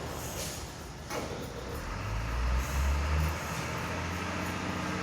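Hino tronton truck's diesel engine running and revving up about two seconds in, with short hisses of air near the start. The truck is leaking air, which makes the clutch hard to engage.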